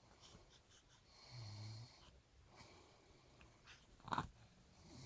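An elderly woman snoring softly. One faint low snore comes about a second and a half in, and a short sharp sound about four seconds in, with near silence between them.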